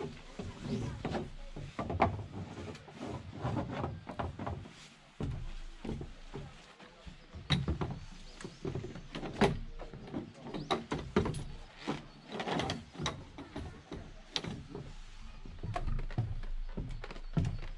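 Irregular knocks, clacks and footfalls on a wooden deck as camping gear is carried into a tent and a folding chair is unfolded and set down.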